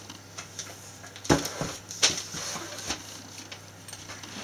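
A few short knocks and light rustles from craft materials being handled on a wooden table, the loudest just over a second in.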